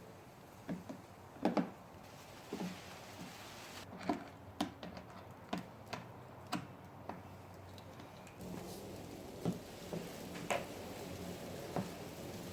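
Irregular light clicks and knocks, as of plastic ride-on toy parts being handled and bumped. About two-thirds of the way in, a steady low hum starts underneath.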